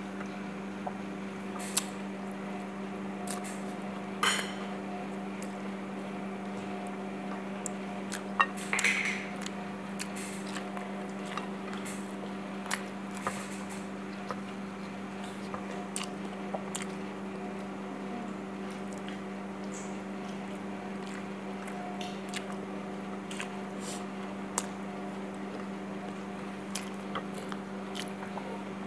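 Eating by hand: rice squished between the fingers and food chewed, with scattered light clicks of fingers on china plates. A steady low hum runs underneath.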